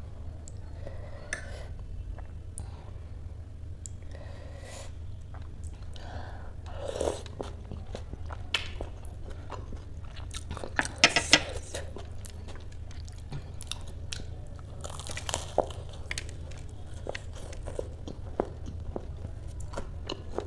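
Close-up eating sounds: a person chewing and crunching spoonfuls of ghugni topped with raw onion, with wet mouth clicks and a spoon now and then. The loudest crunches come about halfway through, over a steady low hum.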